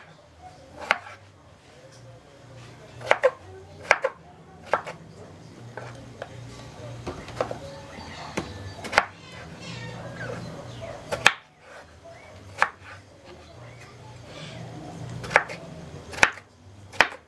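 Kitchen knife cutting peeled raw potatoes into thick chunks on a wooden cutting board: about ten sharp knocks of the blade striking the board, coming irregularly every second or few seconds.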